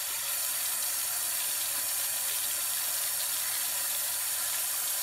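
Kitchen tap running steadily into a sink, the stream splashing over a glass mason jar being rinsed under it.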